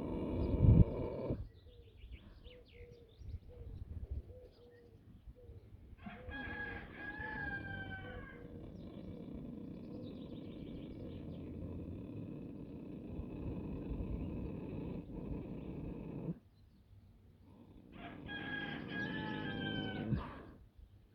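A horse's deep snoring breath dies away about a second in. Then a rooster crows twice, once about six seconds in and again near the end, each crow about two seconds long and falling in pitch at its tail.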